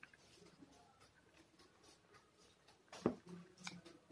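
Fingers mixing and gathering cooked rice on a plate: faint, scattered small clicks and rustles, with one sharper click about three seconds in.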